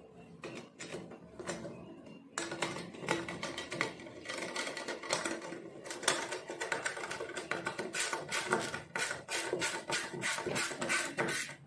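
Rapid clicking and tapping of a hand screwdriver turning screws to fasten an aluminium guide plate onto a conveyor frame. A steady humming tone comes in about two seconds in and runs under the clicks.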